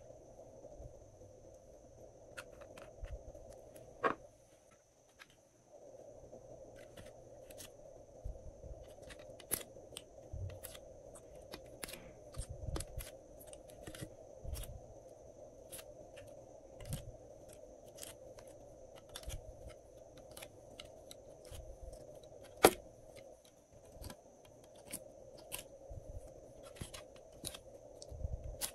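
Hands handling hard plastic (a small nail polish bottle and a clear plastic mold tray) while adding colour to slime: scattered light clicks, taps and scrapes, with a sharper knock about four seconds in and the loudest one about two-thirds of the way through, over a faint steady hiss.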